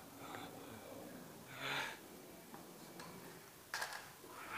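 A person breathing close to the microphone, with one audible exhale about one and a half seconds in.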